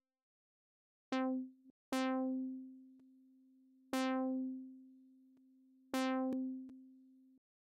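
A software synthesizer plays one note at the same pitch four times, about two seconds apart. Each note starts sharply and fades, leaving a faint held tone underneath that cuts off near the end.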